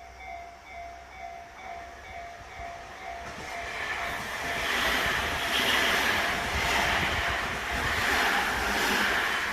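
Railway level-crossing warning alarm dinging in a steady repeating pattern, then a train passing through the crossing about three seconds in, its loud running noise building up and drowning the alarm, with wheels clattering over the rail joints about once a second.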